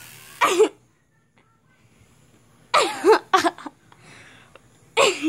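Small Chihuahua-type dog barking four short times at a handheld electric fan held up to it, two of the barks close together. The fan's faint buzz stops about a second in.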